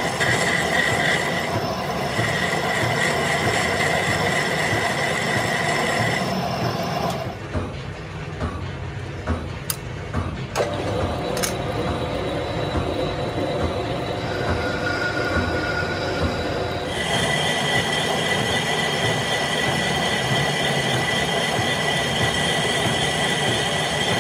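Metal lathe turning a steel gear blank, the cutting tool scraping the spinning workpiece with a steady high whine whose pitch shifts twice, at about 7 and 17 seconds in. A couple of sharp clicks come around 10 seconds in.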